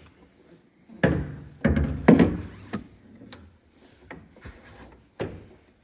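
Hard plastic tail light housing being handled, knocking and rubbing: three loud knocks in the first two seconds, then several lighter clicks.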